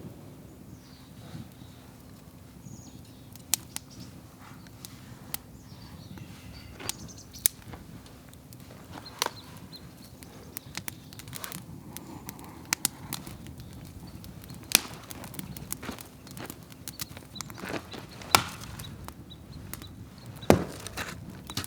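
Wood campfire crackling, with irregular sharp pops and snaps, a few of them louder, over a soft low rustle.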